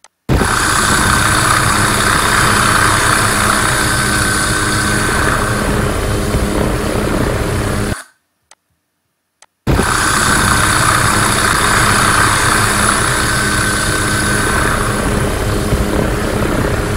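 Helicopter engine and rotor noise heard from aboard the aircraft, steady and loud. It cuts off abruptly about eight seconds in, returns after a second and a half of silence, and stops again just before the end.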